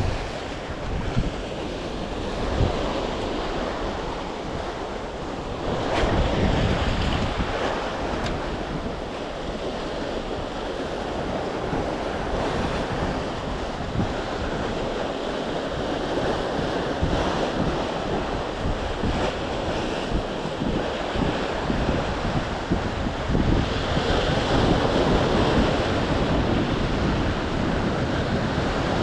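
Sea waves washing and surging against the shore, with wind gusting across the microphone.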